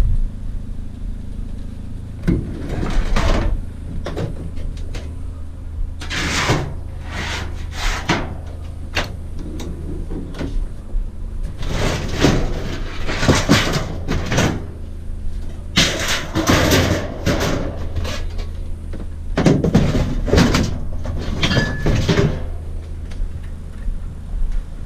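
Scrap metal being shifted and loaded, clattering and banging in five or so bursts of knocks, over the steady low hum of an idling vehicle engine.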